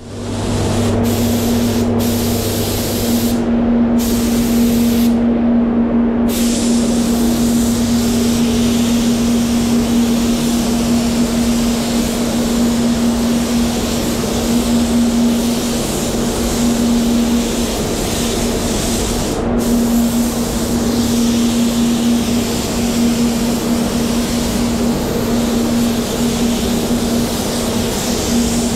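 Hiss of a SATAjet X5500 spray gun (1.2i set-up) spraying a blender coat of water-based base coat, over the steady hum of the spray booth's fans. The hiss stops briefly several times in the first six seconds and once about twenty seconds in.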